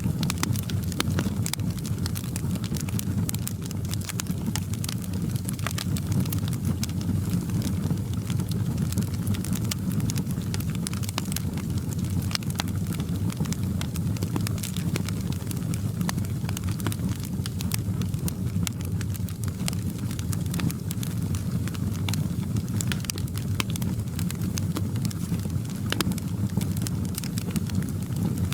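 Wood fire crackling in a fireplace: a steady low rumble with many small, sharp pops and snaps scattered irregularly throughout.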